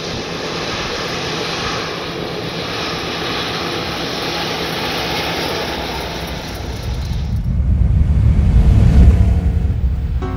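1956 Ford Thunderbird's 312 cubic-inch V8 running as the car pulls away and drives past, a steady engine sound with a lot of hiss. About seven seconds in the hiss drops away and a deep rumble swells up, loudest near the end, then fades.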